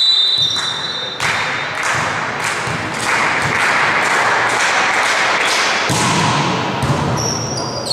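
A steady run of sharp thuds and taps in a sports hall during a volleyball point, about three a second, over a wash of noise that swells in the middle and fades near the end.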